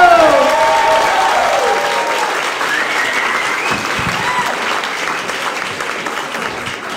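Audience applauding and cheering, the applause slowly dying away. At the start, a drawn-out shout of the comedian's name trails off over the clapping.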